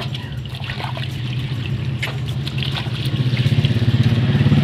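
Water splashing and trickling in a wash basin as a steering rack is scrubbed by hand with a rag. Under it an engine runs with a steady pulsing hum that grows louder over the last second and a half.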